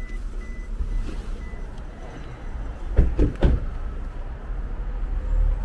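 Low steady rumble of a car on the move, heard from inside the cabin, with two sharp knocks about three seconds in.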